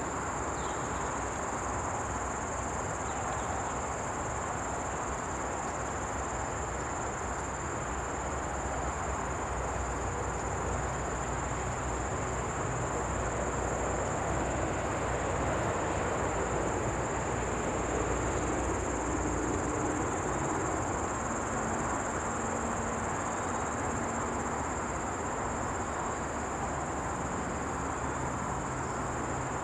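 Common bush cricket (Nisitrus vittatus) chirping: a thin, very high song pulsing in an even rhythm, with a steady high tone alongside it and a low, steady rumble of background noise underneath.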